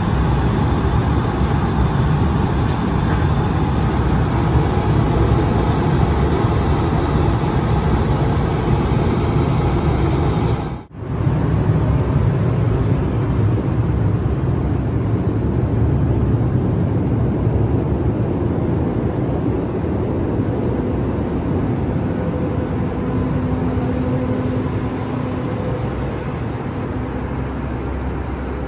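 Steady cabin noise of an Airbus A320, a constant low rumble and rush of air heard from among the passenger seats. The sound drops out briefly at a cut about eleven seconds in, then carries on as before.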